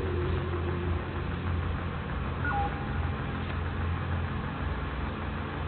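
A steady low rumble under a constant hiss, with a brief two-note electronic beep stepping down in pitch about two and a half seconds in.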